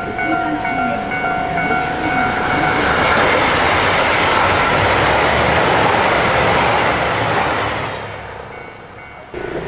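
JR Hokkaido KiHa 281 series diesel express train passing through the station at speed: a rush of wheel and engine noise that builds about three seconds in, holds, then dies away near the end. A station's electronic approach warning chime sounds at first and stops as the train arrives.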